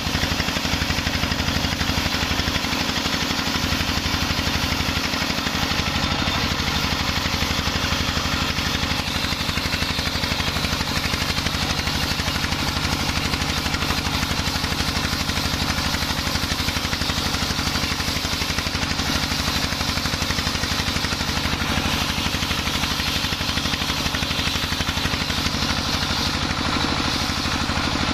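Engine-driven homemade circular saw bench running steadily as its blade rips lengthwise along a coconut-wood beam.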